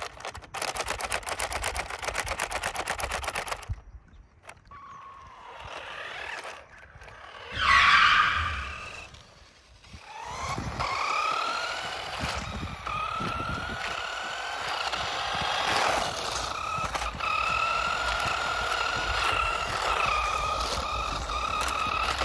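Small electric motor and gears of a 1/18 Carrera Mario Kart RC car whining as it drives on asphalt, the pitch rising and dipping with the throttle. A fast rattle fills the first few seconds, and a short, louder whine rises and falls about halfway through.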